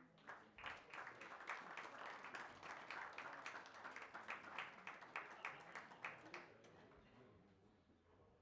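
Audience clapping, the individual claps distinct; the applause thins out and stops about six and a half seconds in.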